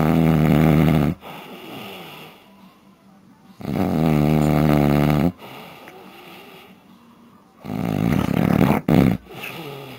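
A man snoring loudly in his sleep: long rasping snores come roughly every four seconds, each lasting a second or two, with quieter breathing between them.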